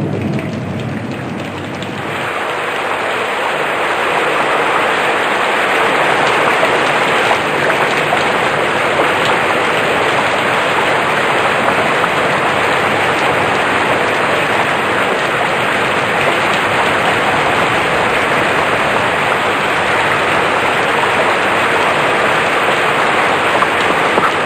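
Heavy rain pouring down in a steady, dense hiss, growing louder about two seconds in.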